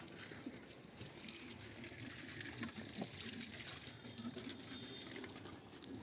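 Faint running water from a tap as a container is rinsed and washed out.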